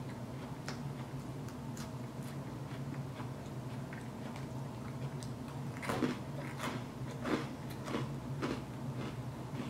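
A person chewing a mouthful of Cobb salad close to the microphone: about six chewing strokes roughly half a second apart in the second half, over a steady low hum.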